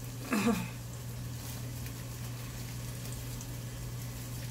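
Tuna sisig sizzling steadily in a frying pan over a constant low hum. A short falling vocal sound is heard about half a second in.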